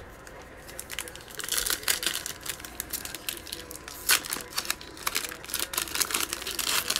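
Foil wrapper of a 2020 Mosaic football trading card pack being torn open by hand, crinkling and crackling in a quick run of small crackles, with one sharper snap about four seconds in.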